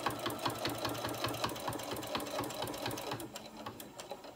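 Domestic sewing machine stitching slowly through thick layers of cotton fabric and batting, an even run of stitches about five a second that slows and stops near the end of the seam.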